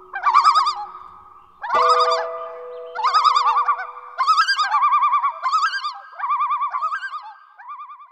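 Bird-like warbling: rapid trilled phrases, each about half a second to a second long, repeated with short gaps over a couple of held lower tones, growing fainter and dying away near the end.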